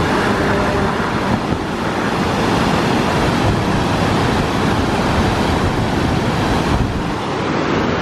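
Steady rushing of the Cross River waterfall, a broad cascade of whitewater pouring down rock ledges.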